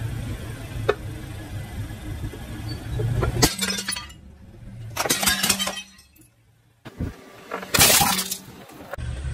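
Bowls cracking and shattering under a slowly rolling car tyre, with the car's low rumble underneath and several loud breaking crunches. Near the end a small plastic toy cracks under the tyre.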